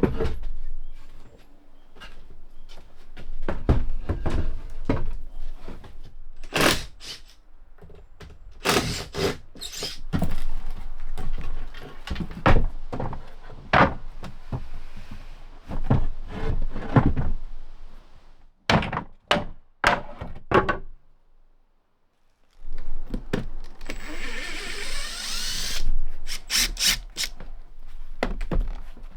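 Knocks, thunks and clattering of wooden floorboards being pried up and handled, with a power drill or driver running for a couple of seconds near the end.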